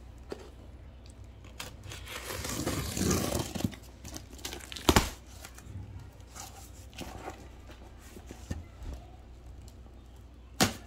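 Box packaging being torn open and crinkled, with the loudest tearing a couple of seconds in. Two sharp knocks come, one about five seconds in and one near the end.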